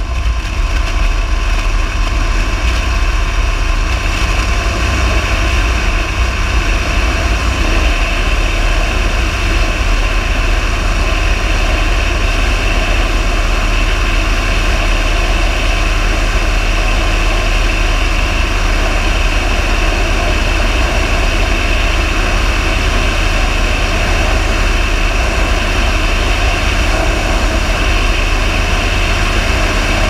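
Steady engine and propeller noise of an aircraft in flight: a heavy low rumble under several high, steady whining tones, unchanging throughout.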